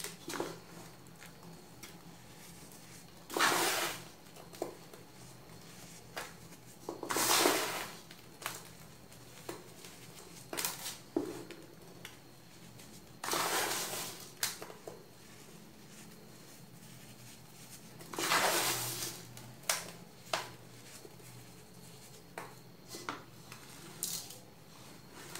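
Hands digging into and crumbling clumpy baking soda powder in a metal bowl. There are four louder bursts of a second or less spread through, with small clicks and softer handling between them.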